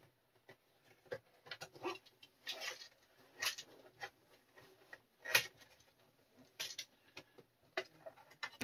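A clear plastic compartment box of small ship-model fittings being handled and turned over on a cutting mat: scattered plastic clicks and knocks with short rustles, a few sharper clicks among them.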